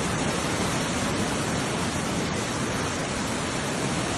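Steady, even rushing noise of fast-flowing floodwater.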